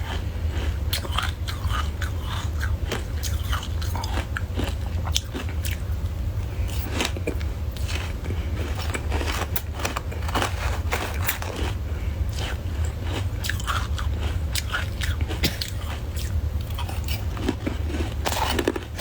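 Soft white ice being bitten and chewed close to the microphone: a dense, irregular run of crisp crunches. A steady low hum lies underneath.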